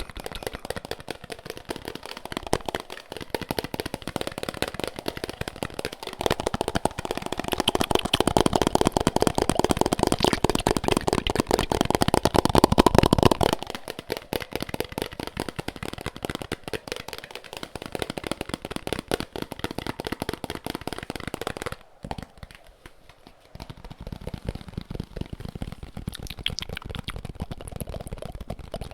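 Rapid, dense tapping close to the microphone, with fingertips and nails drumming on objects. It is louder and fuller for several seconds in the middle and pauses briefly about two-thirds of the way through.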